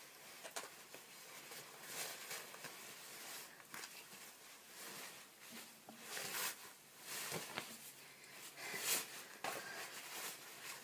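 Rustling of a shiny black costume as it is handled and shaken out, in irregular bursts.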